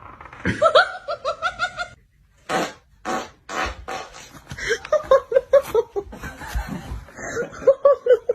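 Farting and laughter: quick pulsing bouts of laughing, about six pulses a second, with a few short breathy bursts in the middle.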